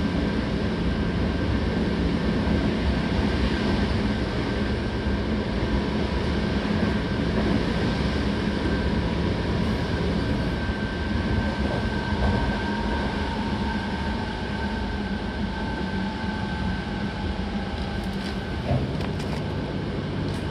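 Seibu 6000-series electric train running, with the steady whine of its Hitachi GTO inverter and traction motors over a continuous rumble of wheels on rail. The whine sags slightly in pitch past the middle and fades near the end as the level eases a little.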